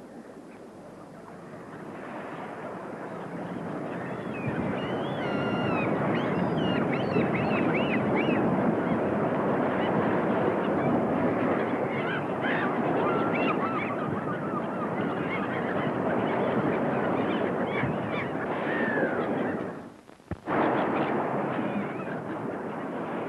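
A dense, massed chorus of birds calling with goose-like honks, many short calls overlapping. It builds up over the first few seconds, then drops out abruptly with a click near the end and comes straight back.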